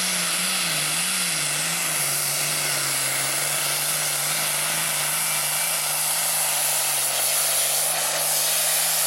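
Diesel pulling tractor running flat out under load as it pulls the weight-transfer sled down the track: a loud, steady engine note with a strong hiss over it. The pitch dips about two seconds in, then holds steady as the sled bears down.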